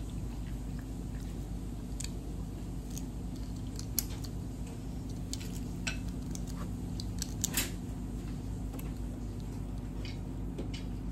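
Cooked crab shells cracking and snapping as crab legs are broken apart by hand: scattered sharp clicks and crunches, the loudest cluster about seven and a half seconds in, over a steady low hum.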